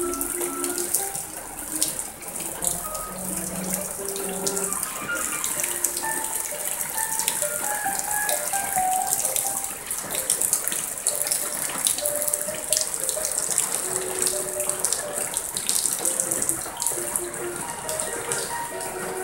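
Rain heard from inside a workshop: a dense, steady patter of many small drops.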